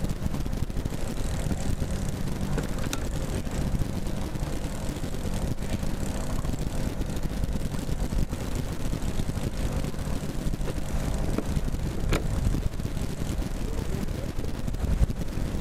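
Boat's outboard engine running steadily at trolling speed, a constant low drone over the rumble of wind and water, with a couple of brief sharp knocks.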